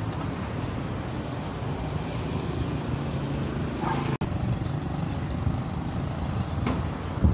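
Street traffic: cars driving past, a steady low rumble of engines and tyres, with the sound cutting out for an instant about four seconds in.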